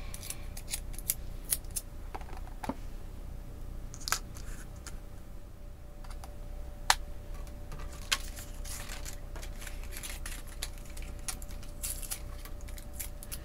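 Cardstock and thin metal cutting dies being handled: irregular light clicks and rustles as low-tack tape is peeled and the die-cut paper and its waste frame are pulled off the dies, with a few sharper clicks.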